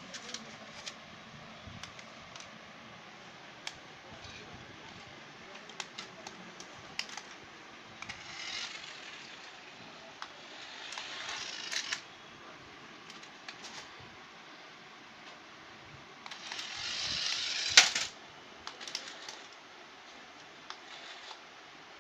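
Toy RC car's small electric motor and plastic gears whirring in three short runs of one to two seconds, the last the loudest and ending in a sharp knock, with scattered light clicks between runs.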